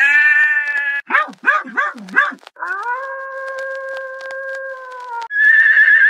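A string of different animal calls one after another: a short high call, four quick calls that swoop up and down, one long steady call of about two and a half seconds, then a wavering high call near the end.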